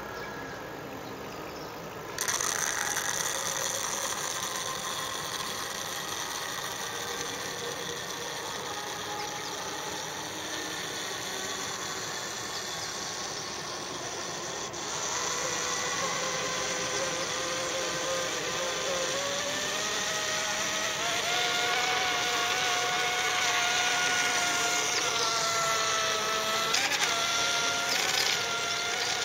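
540-class electric motor and propeller of a paper RC boat running at speed, a buzzing whine like a bee or fly from the pipes that blow air onto the propeller. It gets suddenly louder about two seconds in, and in the second half the whine climbs in pitch and then holds steady.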